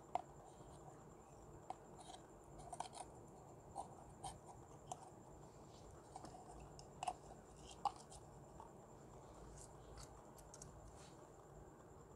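Faint sticky clicks and small pops of clear slime as it is pulled and tipped out of a plastic jar by hand, a dozen or so scattered over a faint steady hiss. The loudest pop comes just after the start, with two more a little past the middle.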